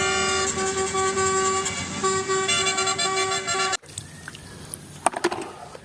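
A telolet-style bus horn playing a multi-note tune, repeating with short breaks, that cuts off abruptly about four seconds in. A few faint clicks follow.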